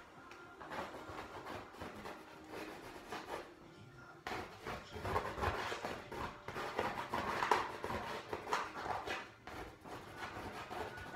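Paint being worked onto a stretched canvas: irregular rubbing and scraping strokes against the canvas surface, growing louder and busier from about four seconds in.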